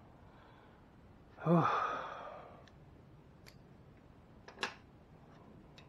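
A man's loud, weary sigh about a second and a half in, falling in pitch and fading out, after the strain of tightening a long run of stiff bolts. A few sharp clicks follow.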